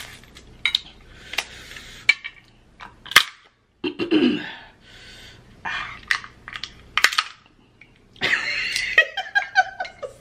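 Snow crab leg shells cracking and snapping in the hands, a string of sharp clicks and crunches, with eating noises between them as the meat is pulled and bitten out.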